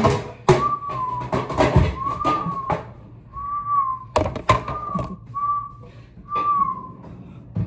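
A person whistling a short phrase of about six clear held notes, each bending slightly up and down. Dishes knock and clatter at the sink between the notes.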